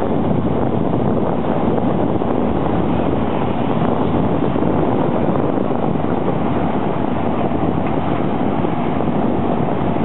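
Steady boat engine noise mixed with wind buffeting the microphone, no distinct knocks or changes.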